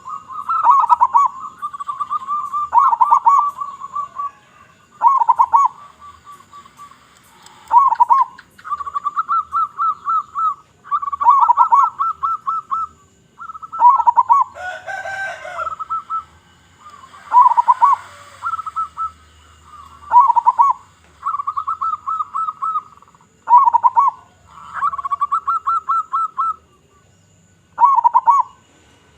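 Local zebra dove (perkutut) cooing in repeated phrases a few seconds apart, each a run of quick stuttering coos ending in a few lower, stronger notes. About halfway through comes a brief, different call.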